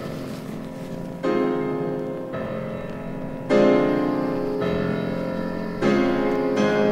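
Solo piano music: slow chords struck three times, about every two seconds, each left to ring and fade, the middle one loudest.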